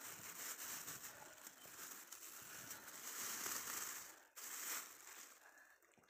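Rustling and crinkling as a person pushes through big tobacco leaves along a narrow field path, with a short louder rustle after about four seconds.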